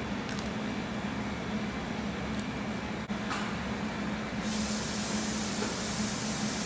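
KitchenAid stand mixer running steadily with a low hum while mixing cream-cheese filling, with a few light clicks of eggshells being handled in the first half. About four and a half seconds in, a hiss joins in.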